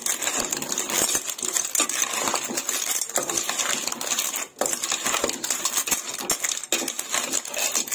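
Metal spoon stirring clams in their shells in a steel pot: rapid scraping, clinking and shell clatter, with a brief pause about halfway through.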